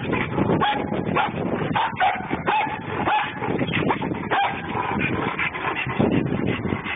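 Police service dog whining and yipping in a string of short, high-pitched cries.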